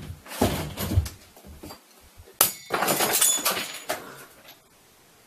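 A door is flung open with heavy thumps. About two and a half seconds in comes a sharp crash, followed by a second or so of clattering with brief ringing tones.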